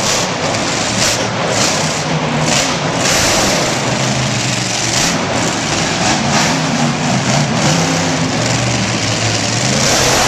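Motor engines running loudly, their pitch rising and falling as they rev.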